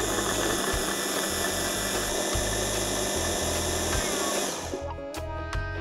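Food processor motor running at speed, blending a liquid egg batter smooth, then switching off abruptly near the end. Background music is left playing.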